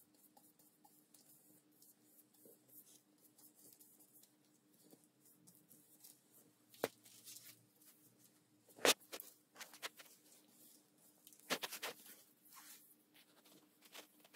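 Faint handling sounds of brushing finish onto a wooden handle: soft rustles of the bristles and the plastic-wrapped blade being turned, with a few sharper clicks about halfway through and a small cluster near the end, over a faint steady hum.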